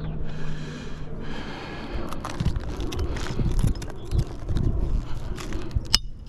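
Irregular scraping and knocking of hand work on an asphalt shingle roof, with low thumps and a sharp click near the end.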